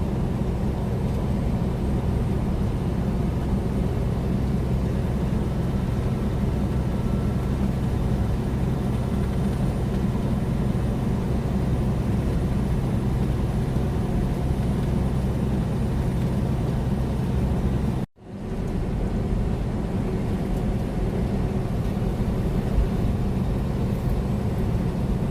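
Steady low drone of a loaded semi-truck cruising at highway speed, heard from inside the cab. About eighteen seconds in, the sound cuts out abruptly for a moment, then comes back.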